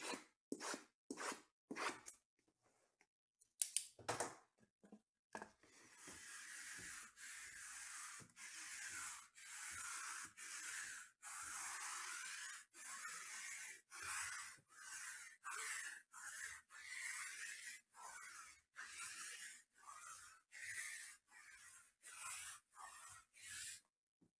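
Hands working shrink-wrapped cardboard hobby boxes, making a run of dry scraping, rustling strokes. They are short and quick at first, then from about five seconds in turn into longer hissing strokes, roughly one and a half a second.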